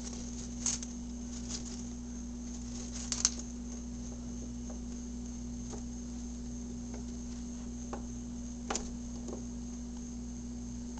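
A hamster nibbling and crunching food: scattered small sharp clicks, the loudest about three seconds in and again near nine seconds, over a steady low hum.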